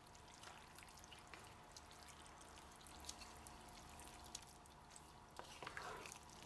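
Near silence, with faint wet clicks and squelches of a wooden spoon stirring a thick, watery stew in an enamelled cast iron pot, a little busier near the end.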